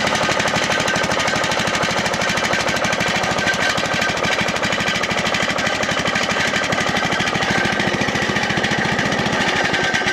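Riding lawn mower's 17.5 hp Briggs & Stratton Intek overhead-valve engine running steadily with a rapid, even firing beat, then shut off right at the end.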